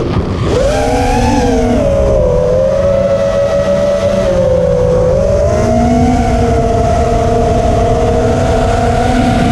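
FPV freestyle quadcopter's brushless motors whining, pitch dipping slightly then rising a little and holding steady, over a heavy low rumble.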